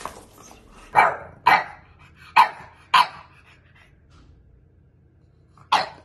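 Bulldog puppy barking: five short, sharp barks, two quick pairs in the first three seconds and a last one near the end.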